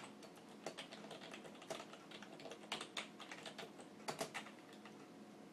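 Faint, irregular clicking and tapping, several small clicks a second in loose clusters, over a faint steady hum.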